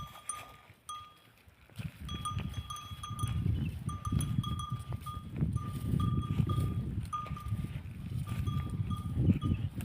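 Cowbell clanking over and over, two or three short rings a second, over a low rumbling noise that comes in about two seconds in.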